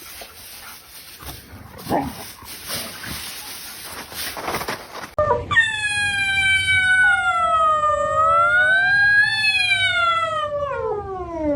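A dog howling: one long, wavering howl of about six seconds that rises a little and then falls away at the end. Before it comes a stretch of indistinct, noisy background.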